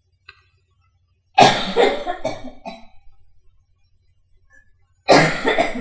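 A man coughing twice, about a second and a half in and again near the end.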